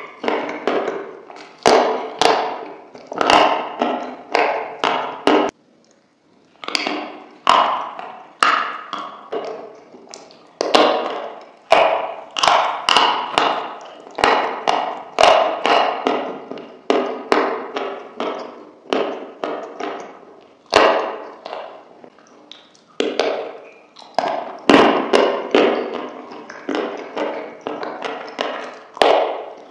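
Close-miked crunching as a crumbly white food is bitten and chewed, a quick run of crisp crackles with each bite. There is a brief pause about six seconds in.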